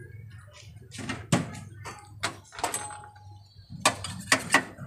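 Utensils and containers being handled at a crepe hotplate: about half a dozen sharp knocks and clicks, some with a short metallic ring, the loudest near the end, over a steady low hum.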